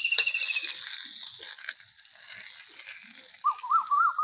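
Finely chopped pehta (kachri) sizzling and crackling in hot oil on a tawa, with small scraping clicks, loudest in the first second and then dying down. A trilling chirp sounds at the start, and a repeated warbling call begins near the end.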